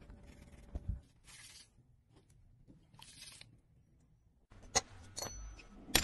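Short, soft brushing and scraping sounds of watch parts being cleaned, then a few sharp clicks of metal parts being handled in the second half, the loudest at the very end.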